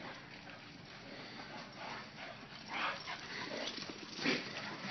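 Dogs playing together, heard faintly as soft dog noises and scuffling, with a few short sounds near the end.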